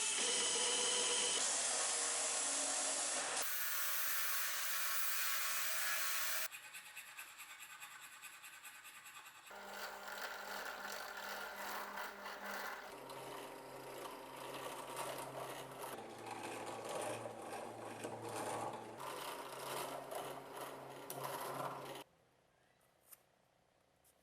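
Workshop tool noise in a string of short clips, each starting and stopping abruptly: a loud hiss-like scraping at first, then motor-driven tool sound with a steady low hum. About two seconds before the end it drops to near silence with two faint clicks.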